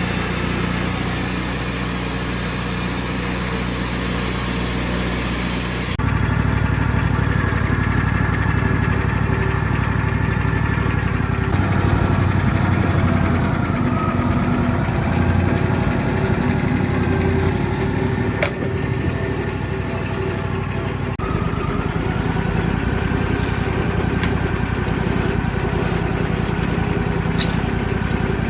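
An engine running steadily, its sound changing abruptly twice.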